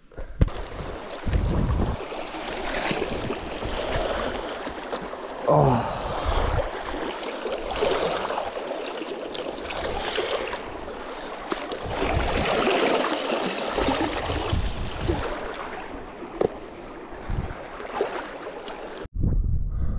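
Muddy river running and splashing, with water sloshing around a hiking boot as it is rinsed in the current.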